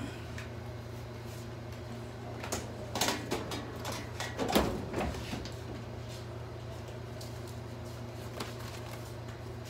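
Knocks, scrapes and paper rustles of a filing-cabinet drawer and hanging file folders being handled, in a burst from about two and a half to five seconds in. A steady low hum runs underneath.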